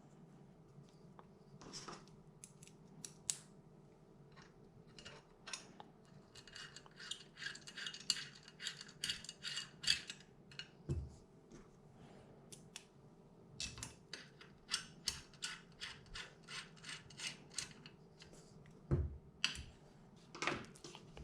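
Small metal rifle-stock parts and screws being handled and fitted with a hex wrench: runs of light metallic clicks and ticks, with a couple of duller knocks.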